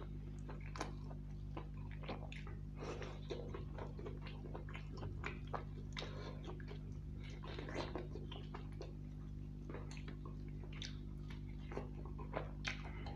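Close-up chewing and mouth sounds of a man eating chicken curry and rice: irregular wet smacks and clicks, over a steady low hum.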